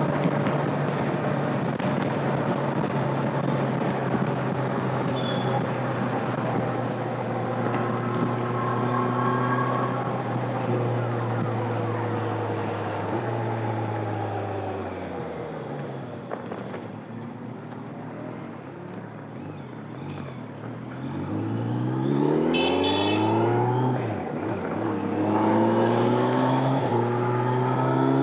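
2025 Kawasaki Z900's stock inline-four engine and exhaust, heard onboard, holding steady revs at cruise. About halfway through the revs fall away as the throttle closes and the engine runs low for a few seconds. Then it pulls hard again, revs climbing, with a short dip between gears before climbing once more near the end.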